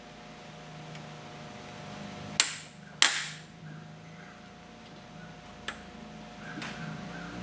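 Two sharp metal clanks about half a second apart a little over two seconds in, then a lighter click near the end: hand tools knocking against metal car parts during disassembly.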